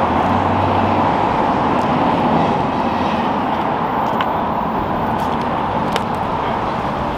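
Steady rushing background noise with a few faint ticks.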